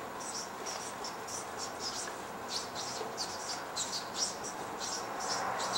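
Felt-tip marker squeaking across paper as a word is written by hand, in short, irregular strokes about three to four a second, over a steady faint hiss.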